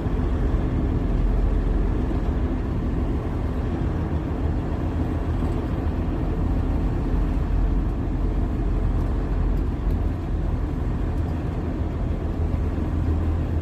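A semi truck's diesel engine running at a steady low drone with road noise, heard from inside the cab while driving.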